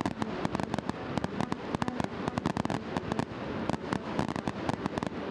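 Fireworks going off in a rapid, continuous string of sharp pops and crackles.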